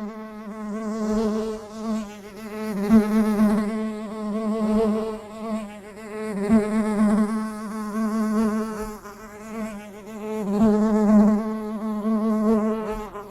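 Bee buzzing in flight: a steady, slightly wavering wing buzz that swells and fades every few seconds.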